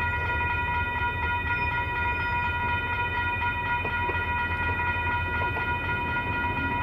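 Union Pacific EMD GP40 diesel locomotives approaching with a steady low engine rumble, while a railroad crossing bell rings continuously.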